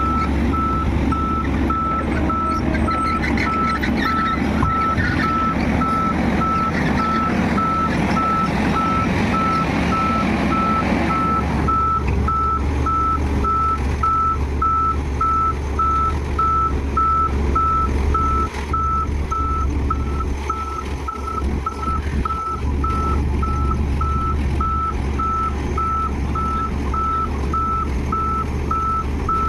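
Heavy equipment's reversing alarm beeping steadily, about two beeps a second, over a diesel engine running; the engine and machine noise are louder for roughly the first ten seconds, then settle.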